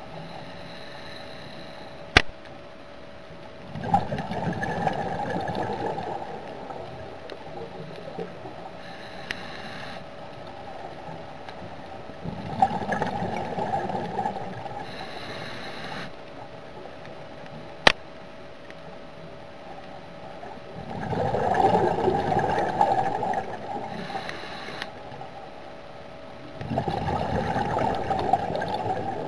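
Scuba diver breathing through a regulator underwater: a slow cycle of fainter hissing inhalations and louder bubbling exhalations, four exhalation bursts of two to three seconds each. A steady hum runs underneath, and two sharp clicks come about two and eighteen seconds in.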